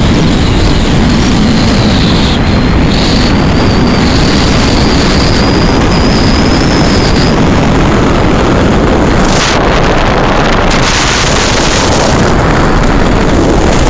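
Loud, steady rush of wind buffeting the microphone, with road noise from a moving car. A faint high whine rises slightly in pitch over the first half.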